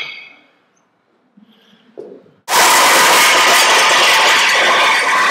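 A metal clink with a short ring, then, about two and a half seconds in, a loud, steady scraping starts suddenly: a weight sled's metal runners dragging across concrete as it is pushed.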